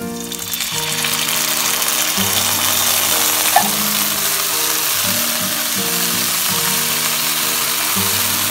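Creamy white pasta sauce poured into hot oil and fried garlic in a wok, sizzling loudly from the moment it goes in and carrying on steadily, with a single click about three and a half seconds in. Background music plays underneath.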